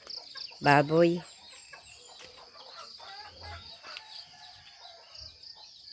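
Chickens clucking and a rooster crowing faintly, with one drawn-out call near the end, over a steady high insect trill.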